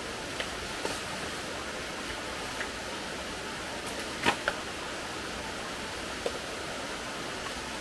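Steady rushing of a forest stream, with a few short sharp clicks and knocks over it, the loudest about four seconds in.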